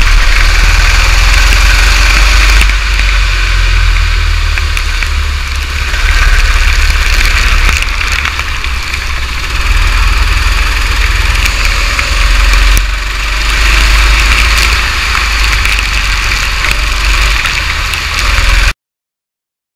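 Kart engine running at track speed, its loudness swelling and dropping every few seconds with the throttle. Heavy wind and rain rumble on the onboard camera's microphone runs under it. The sound cuts off suddenly near the end.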